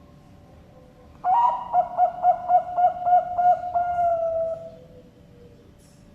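Zebra dove (perkutut bangkok) cooing its song: a quick run of about ten rippling coos, some four a second, that ends in one longer, slightly falling note, about three and a half seconds in all.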